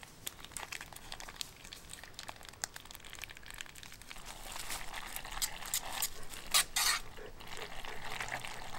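A utensil stirring macaroni and cheese in a small metal pot, scraping and clicking against the pot. The stirring gets louder about halfway through, with a couple of sharper knocks.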